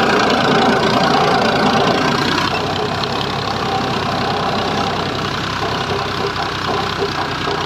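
Tractor diesel engine running steadily under load while pulling a two-bottom mouldboard plough through soil, heard from the driver's seat. It eases off slightly about two and a half seconds in.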